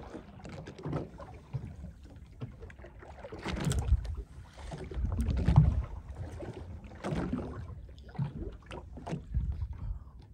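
Water slapping and lapping against the hull of a small drifting fishing boat in irregular bursts, with wind buffeting the microphone.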